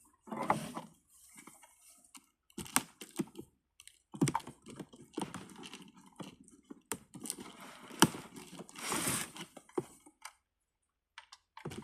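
Cardboard box being pried and torn open by hand, with irregular rustling, tearing and sharp clicks and knocks.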